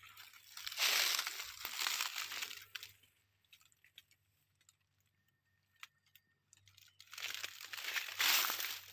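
Crunching and rustling of dry leaves, in long noisy swishes for the first few seconds and again near the end, with a few seconds of near silence in between.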